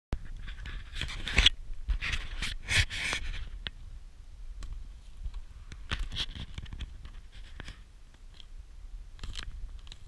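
Footsteps crunching and scraping over dry leaf litter, twigs and earth on a forest floor, with rustling, in irregular bursts that are loudest in the first few seconds and then thin out to scattered crackles.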